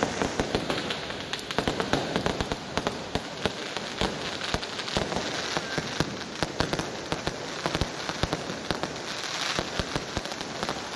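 Diwali fireworks crackling: a rapid, unbroken run of small pops, many each second, over a steady hiss. A few louder bangs come in the first few seconds.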